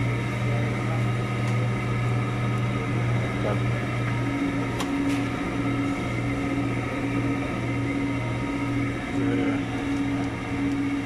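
Steady hum of an open refrigerated display case's cooling machinery: a constant low drone with a higher tone that comes and goes, and a few faint clicks.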